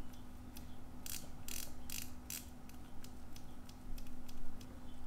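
Small, sharp mechanical clicks from an antique Cyma pocket watch being handled: a ratchet-like run of four louder clicks about a second in, then fainter scattered clicks.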